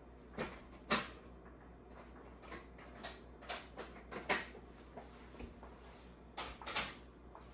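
Irregular short clicks and knocks, about eight over several seconds, with quiet between them.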